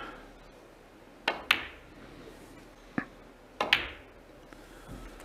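Sharp clicks of snooker balls: the cue tip striking the cue ball and the balls knocking together. Two quick clicks about a second in, a single one at three seconds, and two more a little later.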